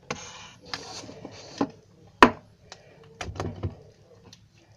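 Handling sounds while slime is coloured with a marker: a few scratchy rubbing strokes, then a sharp click about two seconds in and a few light knocks a second later.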